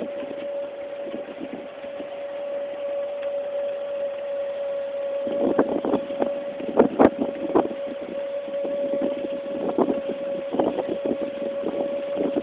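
Golf cart driving along a paved cart path: a steady drive whine throughout, with rattling and knocking from the cart from about five seconds in, loudest around seven seconds.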